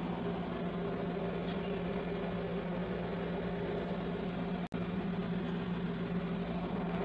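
A steady low-pitched hum with background hiss, broken by a brief dropout about four and a half seconds in.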